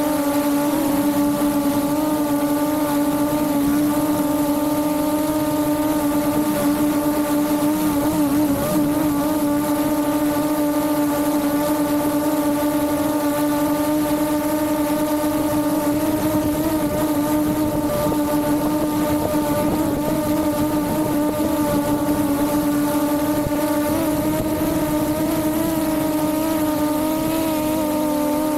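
Quadcopter drone's propellers and motors buzzing steadily in flight, heard close up from a camera slung under the drone. The hum holds one pitch with only slight wavering.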